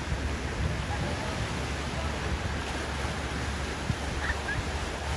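Outdoor wind rushing over the microphone: a steady low, uneven rumble with a hiss above it. A faint short chirp about four seconds in.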